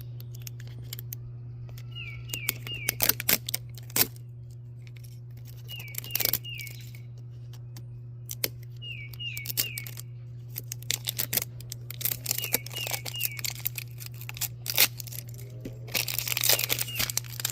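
Toy packaging being handled and opened: scattered clicks and rustles, with a longer burst of tearing wrapper about sixteen seconds in. Short high chirps in quick groups of three recur every few seconds over a steady low hum.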